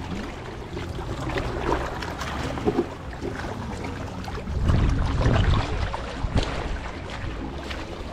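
Outdoor noise on the water: uneven wind rumble on the microphone with water sounds, and a few faint, indistinct voices.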